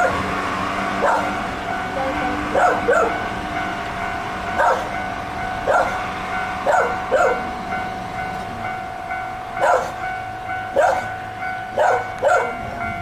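An electric train running near a railway level crossing, its low rumble steady throughout. Over it a dog barks about once a second, sometimes twice in quick succession.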